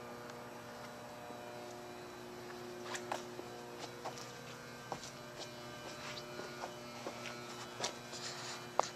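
A steady electrical hum made of several constant tones, with scattered faint clicks and taps.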